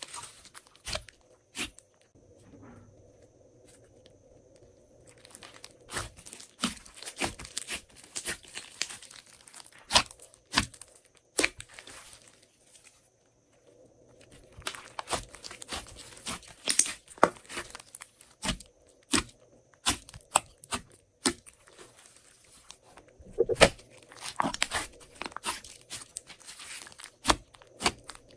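Glossy slime being worked by hand, giving runs of sticky clicks and crackles in spells with short, quieter pauses between.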